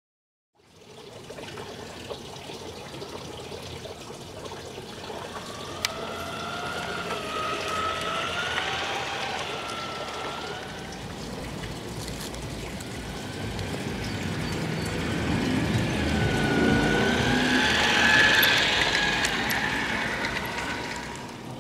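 Small battery-powered G-scale model diesel locomotive running on the track: a motor-and-gear whine that slowly rises and falls in pitch over the rumble of wheels on the rails. It starts about half a second in and is loudest near the end.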